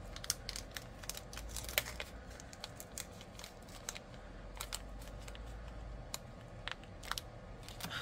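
Small clear plastic packet of crimp tubes being opened and handled, giving irregular light clicks and crinkles.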